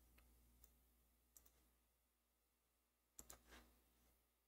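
Near silence with a few faint computer mouse clicks: one about a second and a half in and a quick cluster of two or three around three seconds in.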